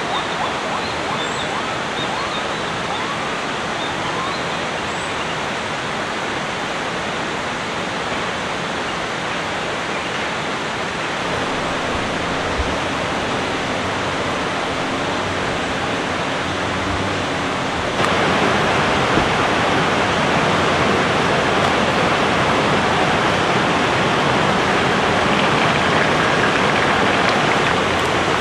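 Steady rush of flowing water. It jumps suddenly louder about two-thirds of the way through.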